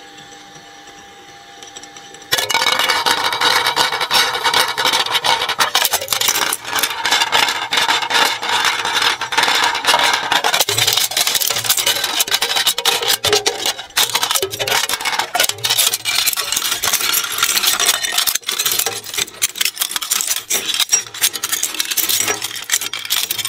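Twin-shaft shredder grinding up a dinner plate. A low steady motor hum runs for about two seconds, then a sudden loud, dense crunching and crackling full of sharp clicks sets in as the blades tear the plate apart.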